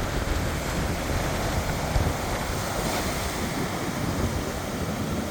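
Ocean surf: a continuous rush of waves that swells about halfway through.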